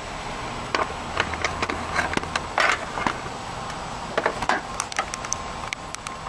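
Irregular light clicks and knocks of handling and tool work in a car's engine bay, over a faint steady hum.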